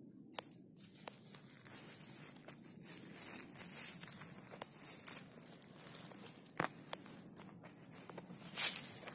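Dry conifer needles, twigs and leaf litter rustling and crackling under a hand working in the litter around a porcino mushroom, with short sharp snaps throughout and the loudest crackle near the end.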